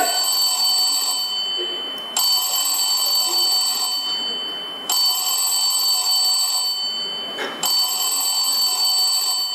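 Telephone ringing with a high electronic ring. Each ring starts sharply and fades over about two and a half seconds, and it rings about four times in a row.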